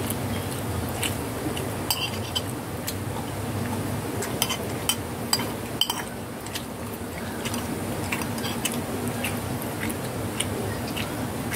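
Several cats chewing pieces of a cassava snack, with irregular sharp clicks and crunches from their eating, thickest in the first half. A steady low hum runs underneath.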